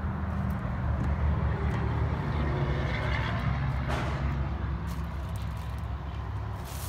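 GMC Sierra 2500 HD pickup's engine idling steadily, with a brief knock about four seconds in.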